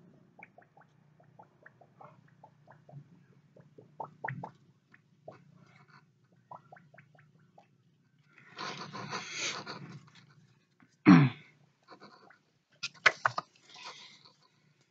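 A folded paper index card being handled and waved: small crinkles and clicks, a burst of rustling about eight and a half seconds in, then a short, loud buzzing sound a couple of seconds later and a few sharp snaps near the end.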